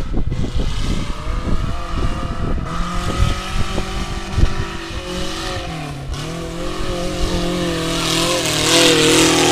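Off-road 4x4 vehicle's engine running under load, with irregular low knocks and thumps in the first few seconds. About six seconds in the revs dip briefly, then climb and get louder near the end.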